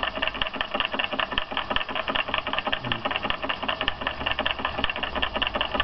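Homemade walking-beam Stirling hot-air engine, built from tin cans with a diaphragm in place of a piston, running steadily with a rapid, even mechanical clatter.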